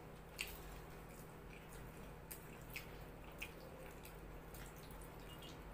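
Quiet eating by hand: a handful of soft, wet clicks and squishes as fingers tear naan and scoop up rajma curry, spread out over a faint steady hum.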